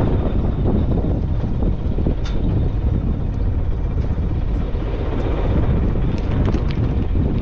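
Steady low rumble of the fishing boat's engine running, with wind buffeting the microphone and a few light clicks.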